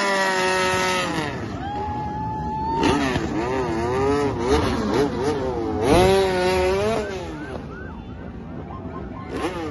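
Racing motorcycle engine revved hard during a burnout. The high engine note falls away in the first second, then is blipped up and down repeatedly for a few seconds before fading.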